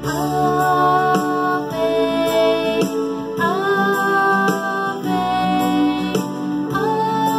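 A woman singing a Marian hymn solo in long held notes over a steady, sustained instrumental backing.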